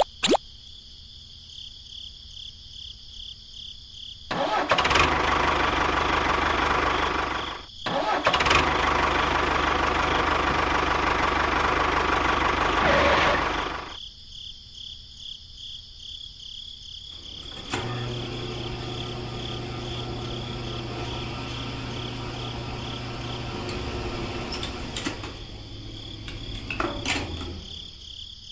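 Engine sound of a miniature tractor in two stretches. First a loud, rough run of about nine seconds with a brief break in the middle, then, after a pause, a quieter and steadier idle with a low hum. A steady high whine sounds throughout.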